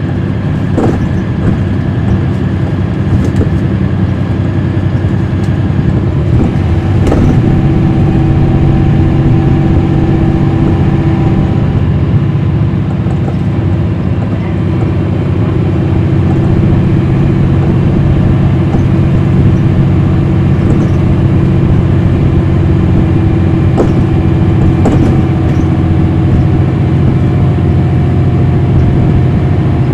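Cummins ISL9 diesel engine of a NABI transit bus, heard from inside the bus while it drives. About seven seconds in there is a knock and the engine note changes pitch, with a few more knocks and rattles later.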